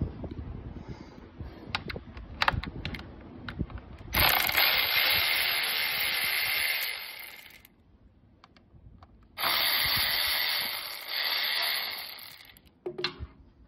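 Cordless electric ratchet with a Torx bit spinning a bolt in two runs of about three seconds each, with a steady motor whine, after a few light clicks of handling metal parts.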